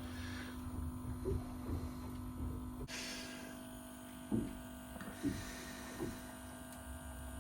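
Steady electrical hum with a low rumble beneath it, and a few faint brief squeaks along the way.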